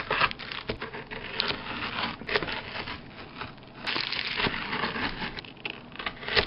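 A kitchen knife cutting down through a set slab of chocolate peanut-butter Rice Krispie squares: irregular crunching and crackling of the crisp rice cereal, with wax paper crinkling under the blade.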